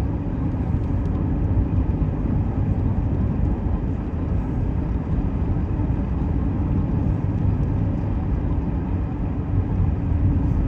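Steady rumble of road and engine noise heard from inside the cabin of a car driving slowly on a snowy road.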